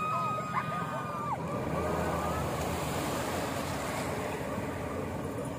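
Outboard motor of a small speedboat running steadily as it tows a loaded banana boat away, with water and wind on the microphone. A distant held shout from the riders fades out about a second and a half in.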